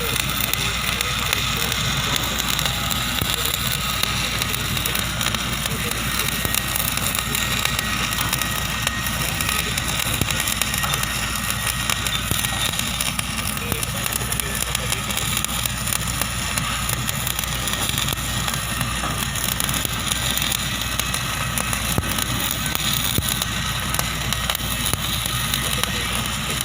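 Electric stick-welding arc running continuously: a steady, dense crackle and sizzle as a bead is laid, without a break.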